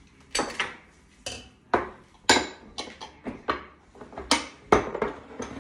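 Irregular clinks and knocks of metal and glass kitchenware, about ten sharp strikes: a stand mixer's metal flat beater being taken off and set down on the counter, and small glass prep bowls handled against the stainless steel mixing bowl.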